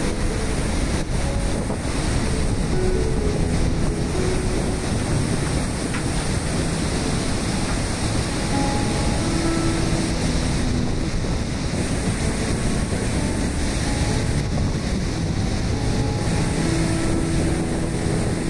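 Steady rush of river water spilling over a dam, with wind noise on the microphone.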